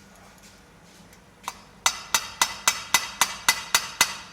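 Hammer tapping on metal: a single strike, then a quick run of about nine ringing strikes, roughly four a second.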